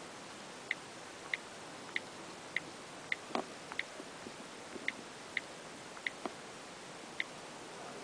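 Faint key clicks of an iOS on-screen keyboard, one short tick for each letter tapped with a rubber-tipped stylus, about two a second with small gaps. A duller knock about three and a half seconds in.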